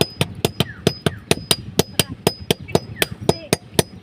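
Blacksmith's hammer striking hot metal on an anvil in a quick, even rhythm, about four to five blows a second, some leaving a short high metallic ring.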